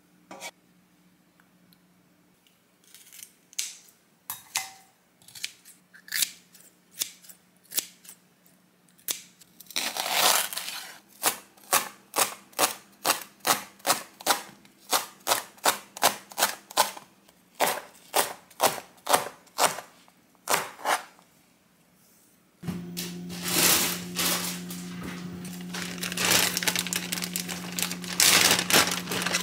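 Chef's knife slicing a green onion on a cutting board: a few scattered knocks, then a fast, even run of chops at about three a second. About three-quarters through, a steady hum starts and a plastic zip bag crinkles loudly as it is opened and handled.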